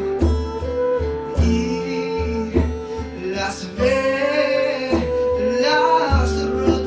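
Live acoustic song: plucked guitar with a voice singing a gliding melody, over recurring low pulses.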